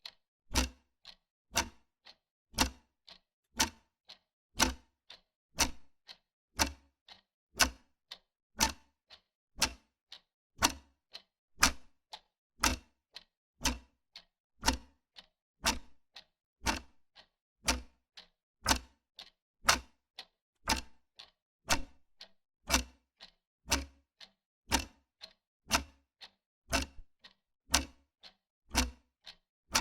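Wall clock ticking steadily, about two ticks a second, alternating a louder and a softer tick.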